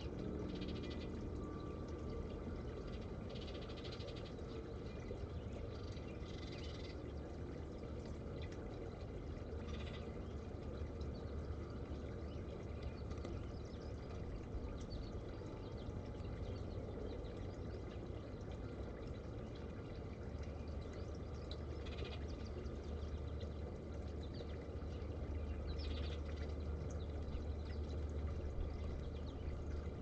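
Steady trickle of a small tiered garden fountain over a low hum, with short high bird chirps scattered through, a few at the start, then around ten seconds in and twice near the end.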